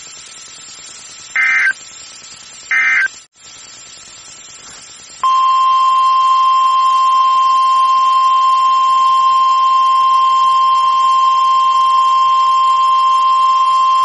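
Two short bursts of Emergency Alert System (SAME) data tones about a second and a half apart. About five seconds in, a loud, steady 1050 Hz NOAA Weather Radio warning alert tone starts and holds for about nine seconds before cutting off; this tone signals that a warning broadcast follows.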